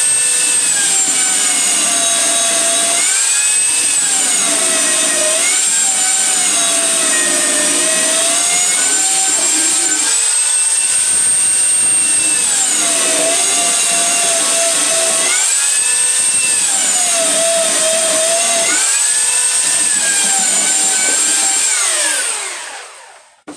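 Electric sander running with a high whine, its motor pitch dipping and recovering several times, as under load against the wood. It is switched off and winds down near the end.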